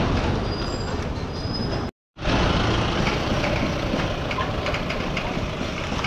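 Steady, noisy outdoor ambience with a low rumble and hiss, broken by a brief silent cut about two seconds in.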